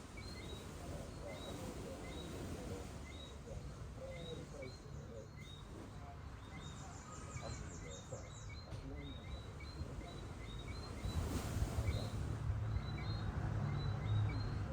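Seaside ambience: gentle surf, its low rumble growing louder about eleven seconds in. Short high chirps repeat steadily over it, and faint voices murmur in the distance.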